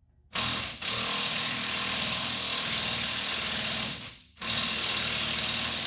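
Impact wrench hammering on a socket and extension, loosening a rusted 15 mm motor mount bolt. It runs in two long bursts with a short pause between them, a little past halfway.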